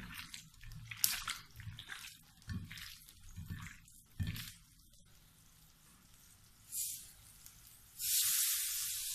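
Wet squelching and smacking of seasoned chicken being pressed and squeezed by hand on a plate, in short squishy sounds over the first four seconds. At about eight seconds a steady sizzle starts suddenly as meat is laid on a hot grill pan on a gas stove.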